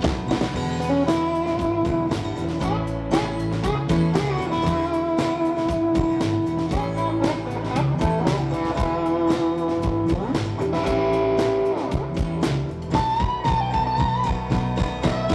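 Live band playing the instrumental intro to a country song: an electric guitar lead with held and bent notes over a steady drum beat.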